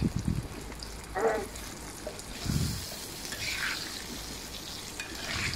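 Boiled potatoes frying in hot oil in a wok-style pan: a soft sizzle, broken by a few dull knocks and scrapes of a metal spatula stirring them.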